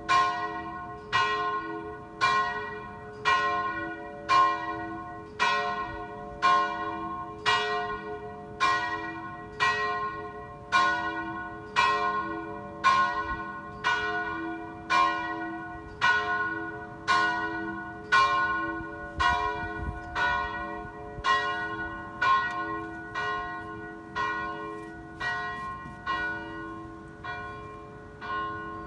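A single swinging church bell, believed to date from the 1700s, ringing steadily about once a second with a long hum between strokes. The strokes grow weaker near the end. This is helgmålsringning, the Saturday-evening ringing that marks the start of the holy day.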